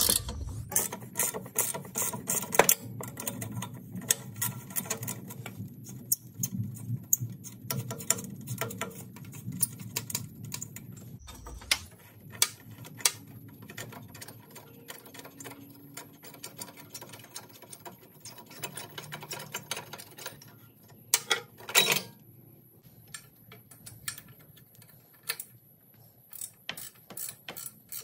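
Hand ratchet clicking in quick runs, with sharp clinks of metal tools, as exhaust manifold and downpipe bolts are worked loose. A few louder clanks come about three quarters of the way through.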